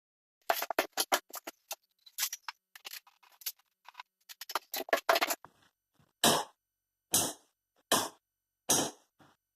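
Handwork on a light fixture being hooked up: a quick run of small clicks, taps and scrapes, then four separate short scrapes about a second apart.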